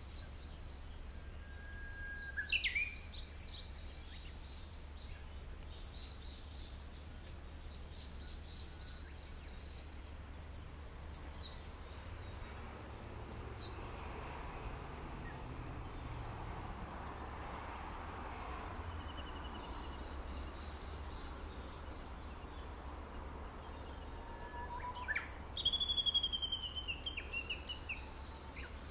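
Japanese tit calling in short, scattered chirps, with one louder call about 25 seconds in, over a steady low background noise.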